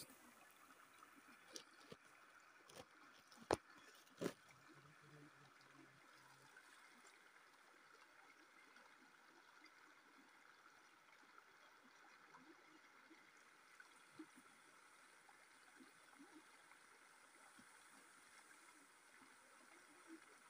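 Faint, steady rush of river water, with a few sharp knocks from the camera being handled in the first five seconds, the loudest about three and a half seconds in.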